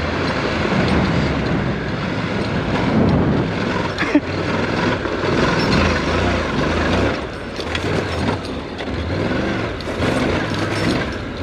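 Honda NC700X's parallel-twin engine running as the motorcycle rides along a dirt track, with noisy rumble over the engine note. There is a sharp knock about four seconds in.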